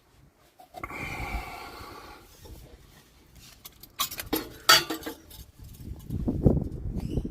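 Steel diff guard scraping and clanking against the differential as it is worked into place. A ringing metal scrape comes about a second in, sharp metallic clinks follow around four to five seconds in, and heavier knocks come near the end.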